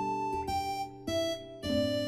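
Background music: a keyboard melody over a steady bass, a new note about every half second.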